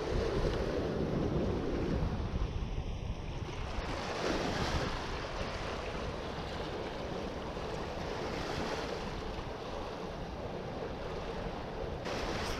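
Small waves washing and splashing against the granite boulders of a jetty, with wind buffeting the microphone.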